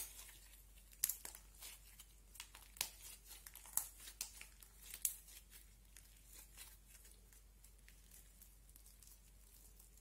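Clay slime being squeezed and kneaded between the hands, giving sticky crackles and small pops. They come thickly for the first five seconds or so, then thin out to faint ones.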